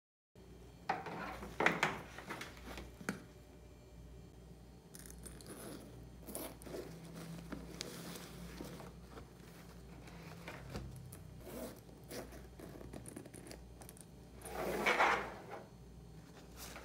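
Zips on a leather backpack being pulled open, then rustling and handling as a fabric shopping bag is taken out and laid on a table. The loudest moment is a rustling swish near the end.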